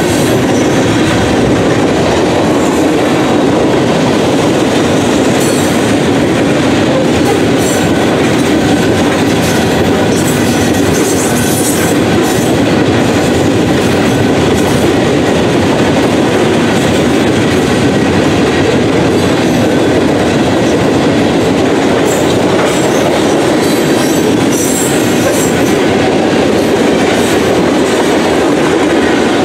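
Cars of a mixed freight train rolling steadily past: loud, even running noise of steel wheels on rail, with brief high squeaks now and then.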